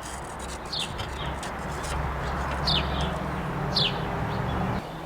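A bird calling with short, sharp downward-sliding chirps, three or four times, over a low steady hum that cuts off suddenly near the end. A few light clicks sound in the first second or so.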